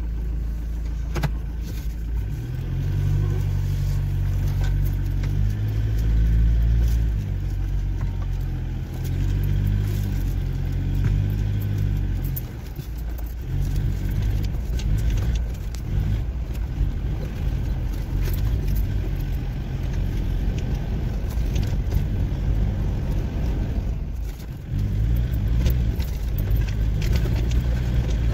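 SUV's engine heard from inside the cabin while driving slowly on a rough dirt track. The engine note rises and falls with the throttle, easing off about twelve seconds in and again near the end, with scattered light clicks and rattles from the bumpy ride.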